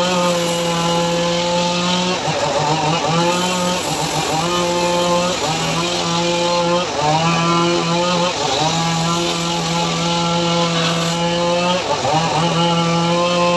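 Homemade engine-driven circular sawmill ripping a teak log. The blade and engine give a loud, steady hum that sags in pitch and recovers every second or two as the blade bites into the wood.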